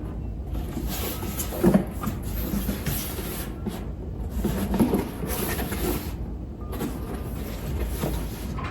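A handmade foam board gift box being handled: scattered light knocks and rubbing, the loudest knocks about two seconds and five seconds in.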